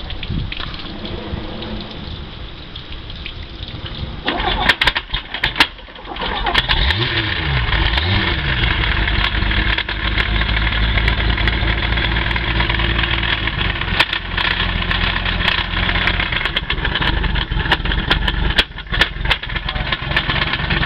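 Boat engine driving an OMC Cobra sterndrive whose lower unit gears are damaged. It runs quietly at first, then about four seconds in becomes much louder with irregular sharp knocks and clatter, revs up and down briefly and runs on loudly with knocking: the grinding of a lower unit chewing up its gears after impact damage.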